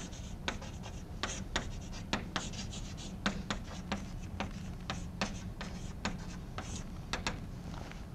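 Chalk writing on a blackboard: a quick series of short, sharp taps and scrapes as the letters are written, over a steady low hum.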